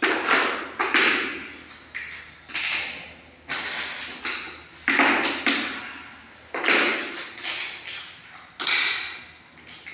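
Sharp knocks and taps on large ceramic floor tiles, about one a second, as plastic tile-leveling clips are set at the joints. Each knock rings out briefly in a bare, echoing room.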